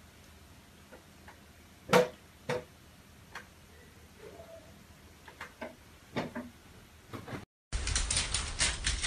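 Scattered sharp taps and knocks in a quiet room, the loudest about two seconds in, with a cluster of smaller ones between five and seven seconds. After a brief drop-out near the end, a denser, louder run of rapid clicks and taps starts.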